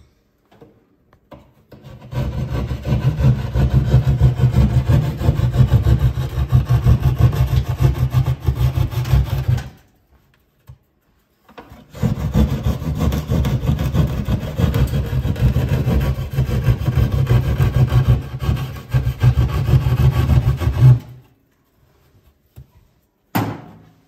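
Drywall jab saw cutting a round vent hole through ceiling sheetrock. It comes as two long spells of rapid sawing strokes, with a pause of about two seconds between them.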